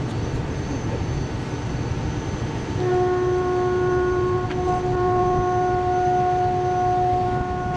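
Steam locomotive whistle sounding one long steady blast, starting about three seconds in, over the low rumble of the locomotive and hopper wagon rolling slowly along the track.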